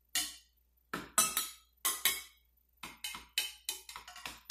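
Water-filled acrylic cups struck one after another with a wooden stick, each giving a short ringing clink at a different pitch that is set by the amount of water in the cup. About a dozen strikes, a few spaced out at first, then quicker taps in the second half.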